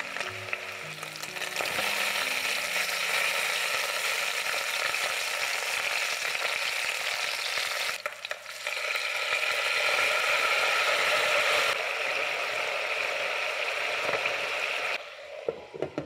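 Food sizzling and frying in a hot pan: a steady hiss that dips briefly about halfway through and cuts off near the end, followed by a few knocks.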